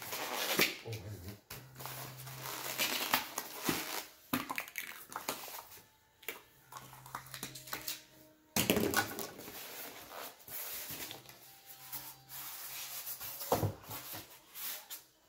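Polystyrene foam packaging lid being worked loose and pulled off its foam base, with irregular rubbing and scraping of foam on foam and a few short squeaks.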